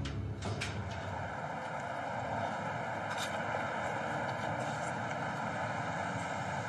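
Outdoor background with a steady, even drone of a distant engine.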